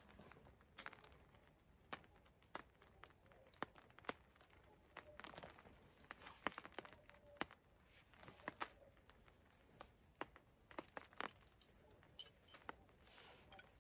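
Near silence broken by faint, scattered clicks and crinkly rustles at irregular intervals.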